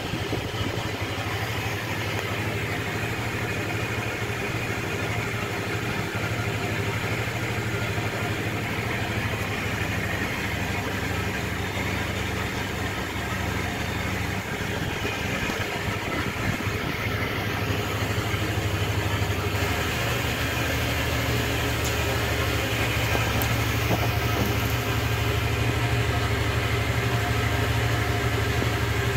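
Honda Click 125 scooter's small single-cylinder four-stroke engine idling steadily, a little louder in the last third.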